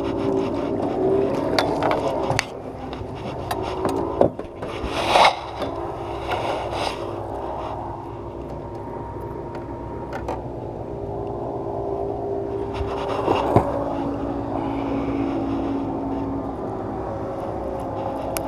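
Scraping, rubbing and knocking as a landing net, a hooked lure and a freshly caught largemouth bass are handled against a small boat's hull. Several sharp knocks stand out, loudest about five and thirteen seconds in, over a steady low hum.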